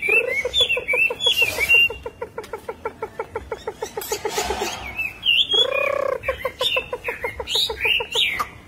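A caged Chinese hwamei singing. Quick whistled notes slide up and down over a fast stuttering run of lower repeated notes, about ten a second, with a louder low note about halfway through.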